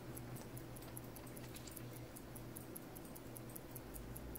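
Quiet workbench room tone: a faint steady low hum with a rapid, even run of faint high ticks.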